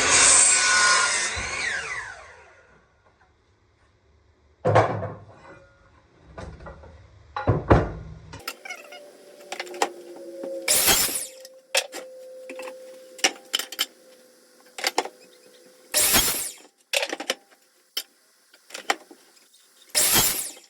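Power saw cutting an angle through a pine 2×10, its blade spinning down in the first two seconds. Then come scattered thuds and sharp knocks of the board being handled and set down.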